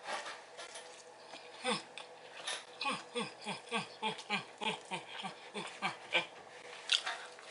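A woman eating: mouth clicks and smacks, then a run of short closed-mouth hums, each dropping in pitch, about three a second, from about three seconds in.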